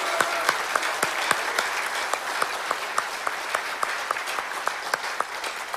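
Large audience applauding: a dense clatter of clapping, with sharp, evenly spaced claps about four times a second standing out from it.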